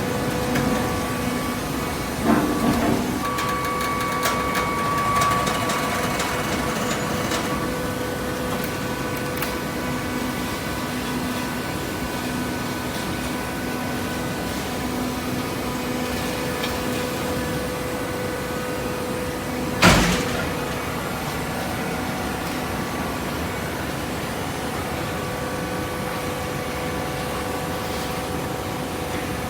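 Automatic vertical paper baler's hydraulic power unit running with a steady hum. A brief clatter comes about two seconds in and a single sharp knock about twenty seconds in.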